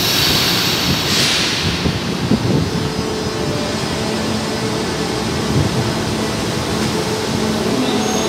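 São Paulo Metro Line 1 train pulling out of an underground station: a burst of air hiss about a second in, then the rumble of the cars rolling away with a steady motor hum.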